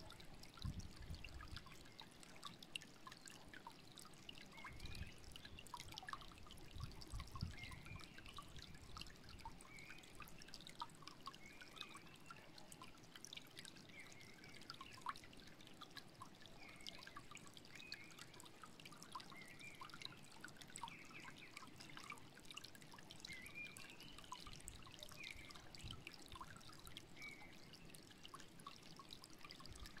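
Shallow stream trickling faintly over stones, with small birds chirping now and then.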